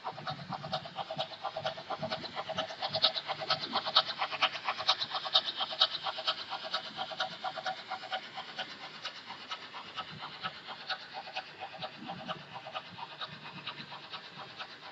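Märklin HO model freight train, hauled by a BR 50 steam locomotive, running past on the layout: a fast, even clatter of wheels over the track with a steady motor hum. It is loudest a few seconds in, and the hum fades out about halfway as the train moves away.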